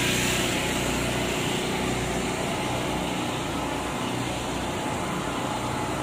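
A steady engine hum with a low drone, strongest at first and weakening about a second and a half in, over a wash of outdoor background noise.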